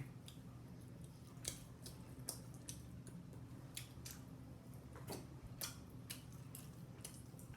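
Chewing close to the microphone: scattered soft clicks, smacks and crunches of a mouth eating, over a faint steady low hum.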